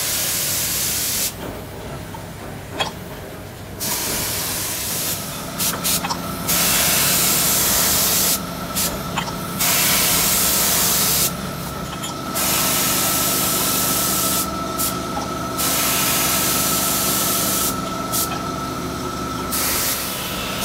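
Compressed-air spray gun spraying paint onto oil filter canisters: loud hissing bursts of a second or two that start and stop sharply as the trigger is pulled and released, about six times. A faint steady machine whine runs beneath from about five seconds in.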